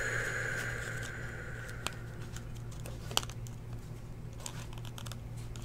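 Foil wrapper of a trading-card pack handled and torn open by hand, with light crinkling and a few sharp clicks. A soft hiss fades away over the first couple of seconds.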